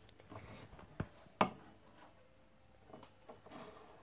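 Faint handling noise from something rubbing against the camera or toys, with two sharp knocks: one about a second in and a louder one about half a second later, then a few faint ticks.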